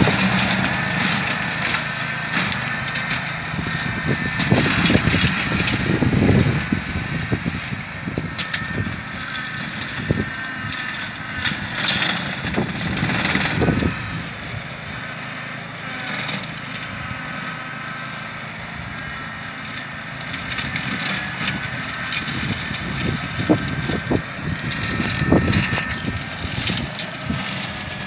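Canycom CMX 227 ride-on brush cutter's engine running steadily under load while its blade chops through woody scrub and stems. Clusters of sharp cracking and crunching come and go, easing for a stretch in the middle.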